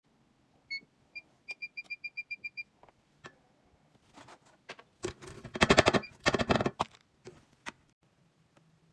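A string of short electronic beeps, about eight in quick succession, then a few seconds later a loud burst of rapid clattering with a few single knocks after it.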